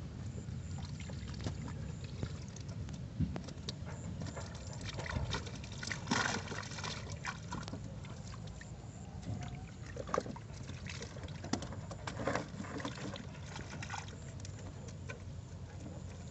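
Water splashing and dripping, with scattered knocks and rustles, as a wet collapsible net fish trap is handled on the deck of a small wooden boat, over a steady low rumble.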